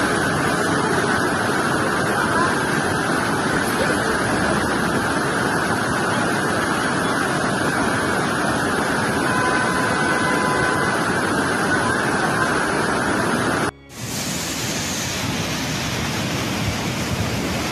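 Floodwater rushing in a torrent, a loud steady rush of water. About fourteen seconds in it drops out for a moment, then the rushing resumes, brighter and hissier.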